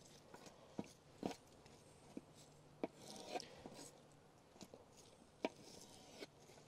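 Small knife cutting through hydrangea leaves and stem on a wooden board: a few faint, separate clicks and taps as the blade goes through and meets the wood.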